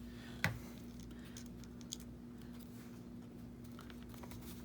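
Quiet hand-and-paper handling at a craft table: one sharp tap about half a second in, then faint paper rustles and light ticks as a glued piece is shifted into place, over a steady low hum.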